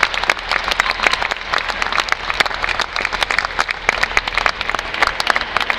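Many people applauding: a dense, irregular run of hand claps.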